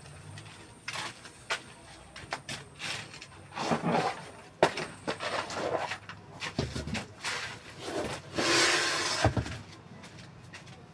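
Irregular knocks and clunks of metal tools and parts being handled while a car wheel is swapped for the spare, with a longer rasping scrape about eight seconds in.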